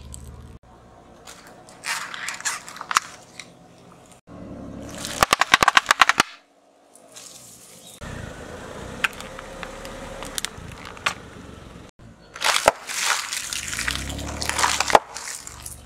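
Car tyre rolling over and crushing small objects, including plastic packaging and a computer keyboard, with crackling and crunching in several separate bursts. About five seconds in comes a fast run of loud sharp cracks.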